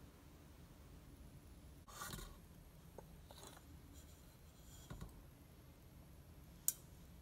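Faint scrapes and light clicks of a small metal spoon scooping spice powder from a stainless steel spice box, with a short scrape about two seconds in and a single sharper click near the end.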